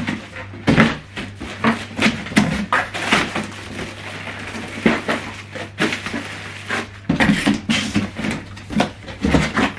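Plastic wrapping crinkling and a cardboard box scraping and knocking as a wrapped printer is lifted out of its box and set down on a table: irregular rustling with a few sharper knocks.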